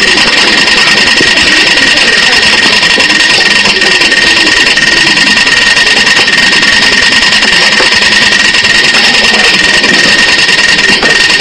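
Steady, even machine noise with a constant high whine, unchanging and with no breaks.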